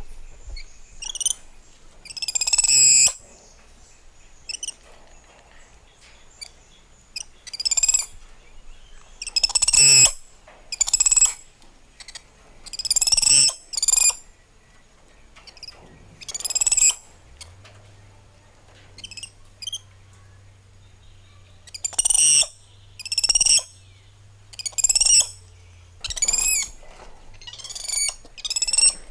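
Spider monkeys calling: a series of high, squealing calls, each less than a second long, one every second or two.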